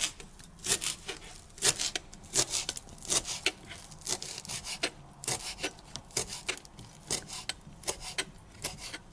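Chef's knife chopping parsley on a thin plastic cutting mat: uneven taps of the blade on the board, about two a second, each with a short scrape through the leaves.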